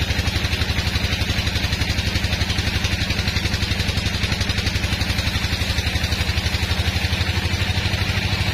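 Engine-driven band sawmill running while its blade cuts through a large hardwood log: a steady engine note with rapid, even pulsing, over a steady higher hiss from the cut.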